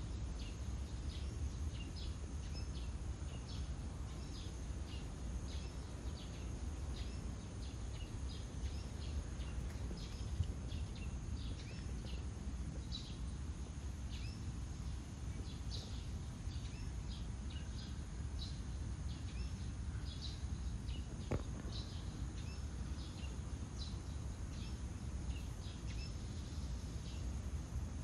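Outdoor ambience: a steady low rumble under short, high chirps that repeat about twice a second, with one sharp click about three-quarters of the way through.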